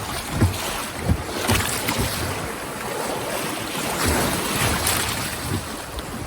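Fast, high river water rushing and splashing around a kayak running a rapid, with a few short low thumps.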